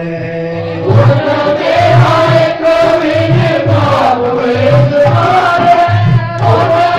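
Devotional chant music. A held chanted note is joined about a second in by a louder melody and a repeating drum beat.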